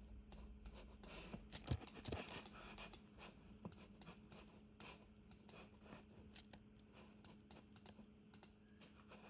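Faint computer keyboard typing and mouse clicks: irregular clicks, several a second, over a low steady hum.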